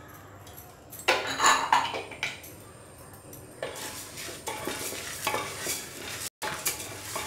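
A wooden spatula stirring dry, unoiled lentils in an aluminium pressure cooker, the grains rustling and scraping against the pot as they dry-roast. A loud scrape comes about a second in, and the stirring turns steady from about halfway.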